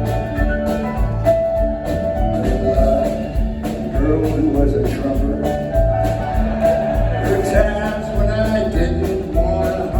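Live rock band playing a mid-tempo song, with a steady bass and drum beat under sustained guitar and vocal lines.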